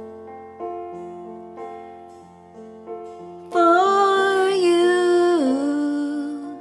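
Gentle piano chords from a karaoke backing track, then a woman's voice comes in about halfway through, singing slow held notes that step down in pitch over the piano.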